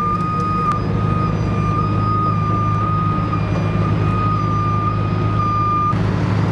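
Flatbed tow truck's engine running steadily while its winch gives a high, steady whine. The whine cuts off suddenly near the end.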